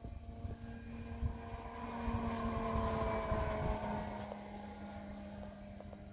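Electric motor and propeller of a Hangar 9 Cub radio-controlled model plane flying past overhead: a steady whine that swells to its loudest about halfway through and drops slightly in pitch as it goes by. Wind rumbles on the microphone underneath.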